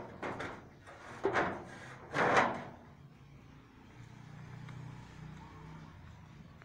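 Footsteps crunching on gravel, three steps about a second apart, the last the loudest. After them comes a low, steady hum.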